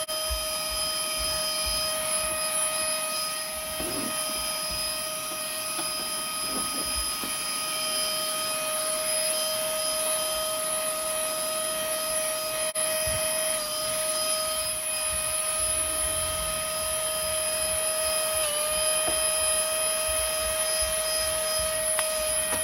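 Cordless handheld vacuum cleaner running steadily: a constant motor whine over a hiss of rushing air, its pitch dipping briefly twice.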